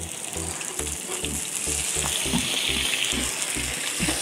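Potato wedges sizzling as they fry in hot mustard oil in a kadai, stirred now and then with a metal spatula that scrapes the pan.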